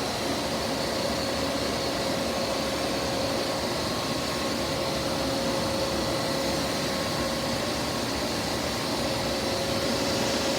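Refrigerant recovery machine running steadily with an even hum, drawing refrigerant out of a water-source heat pump into a recovery tank.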